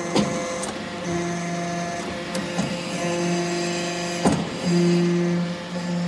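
Hydraulic briquetting press for metal chips running: a steady hum that comes and goes in stretches of a second or two as the press cycles, with a few sharp metallic clanks, the loudest about four seconds in.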